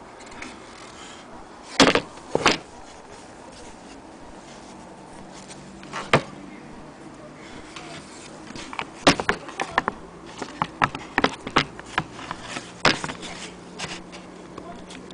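Knocks and clicks of hands handling a wooden sewing-machine base: a few single knocks, then a quick run of them in the second half.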